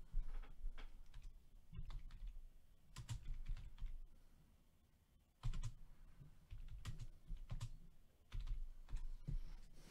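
Faint, irregular light clicks and soft low taps of hands working at a desk, with a brief quiet gap about halfway through.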